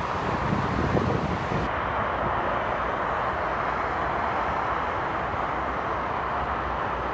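Steady motorway traffic noise: the continuous tyre and engine sound of many vehicles passing on the road below. Wind buffets the microphone in the first second or two.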